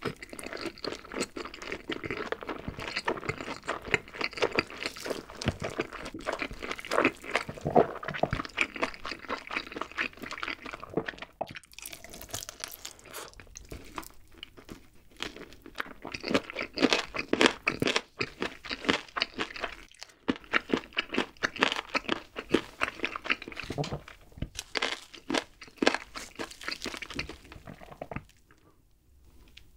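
Close-miked biting and chewing of sauce-glazed roasted chicken, with wet, sticky mouth sounds and irregular smacks. It goes quiet for about the last two seconds.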